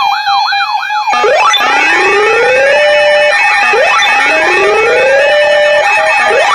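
Electronic siren-style alert sound. About a second of fast warbling sweeps over a steady tone gives way to slow rising wails that repeat about every two and a half seconds, layered with other rising glides and steady tones.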